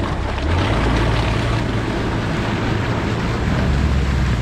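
Steady rushing noise of wind buffeting the microphone over water as a small boat moves across floodwater, with a constant low rumble.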